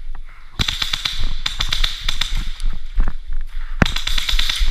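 Airsoft guns firing in rapid bursts of sharp cracks, a run starting about half a second in, another around two seconds, and a last one near the end.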